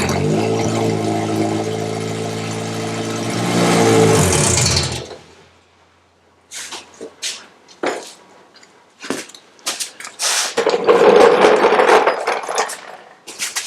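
Toyota 1AR-FE inline-four with upgraded camshafts running on its first test start, with no exhaust fitted yet. It rises briefly about four seconds in and is shut off about a second later. Scattered clicks and knocks follow.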